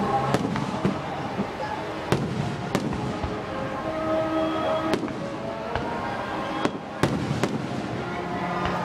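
Aerial fireworks shells going off, with about seven sharp bangs spread through a few seconds.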